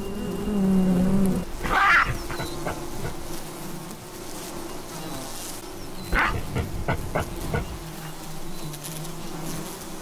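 A swarm of honeybees buzzing in a steady hum around their ground nest as it is dug open, with two brief scuffing noises, about two and six seconds in.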